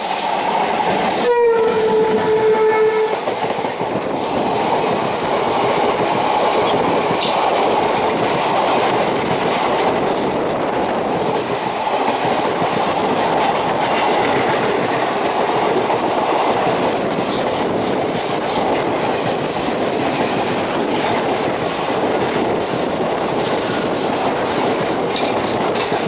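WDM3D diesel locomotive passing close alongside on the next track, with a sharp crack of air as it goes by and a short diesel horn blast of about a second and a half. Then a long steady rush and rattle of its coaches running past in the opposite direction, heard from the window of a moving train.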